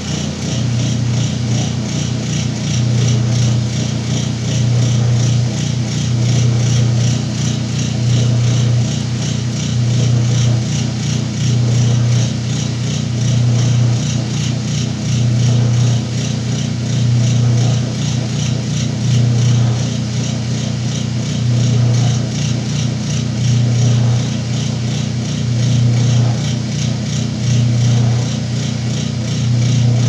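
Whirlpool top-load washing machine's motor humming steadily, the hum swelling about every two seconds, while the blanket-laden basket does not spin. The spin has not engaged, which the owner puts down to a damaged timer.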